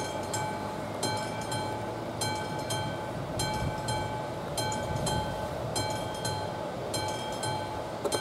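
Level-crossing warning bell of an AŽD 71 signal, a classic mechanical bell, ringing on: uneven strokes about once or twice a second, each ringing on, as the crossing warns of an approaching train. A steady low rumble runs underneath.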